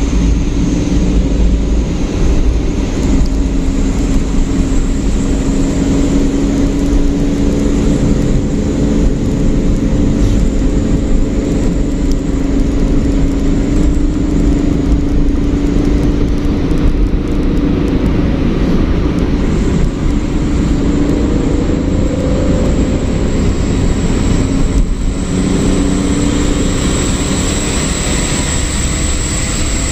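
Steady drone of a vehicle cruising on a highway: a low engine hum holding an even pitch with small shifts, over continuous road and wind noise.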